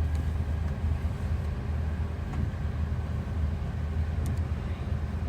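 Steady low rumble of an airliner's engines and airflow, heard from inside the cabin.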